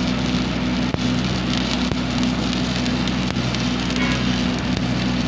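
Stick-welding (shielded metal arc) electrode burning, its arc crackling and sizzling steadily as a bead is run, with a steady low hum underneath.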